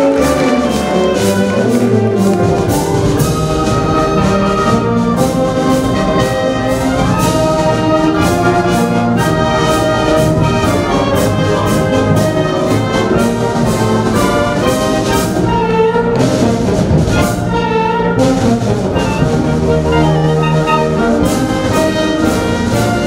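Band music led by brass, with trumpets and trombones playing a melody over drum strokes.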